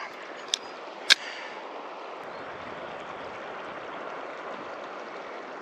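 Steady rushing of the Gunnison River's flowing water, with two short sharp clicks in the first second or so.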